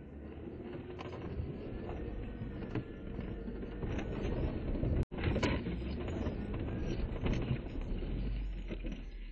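Jeep Wrangler JK Rubicon crawling uphill in four-wheel-drive low with the rear differential locked: engine running under load as the tyres work through rutted snow, with frequent knocks and rattles from the vehicle. The sound cuts out for an instant about five seconds in.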